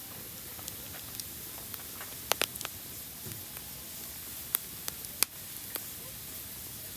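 Wood campfire burning: a steady hiss with scattered sharp crackles and pops, a cluster a little over two seconds in and the loudest single pop about five seconds in.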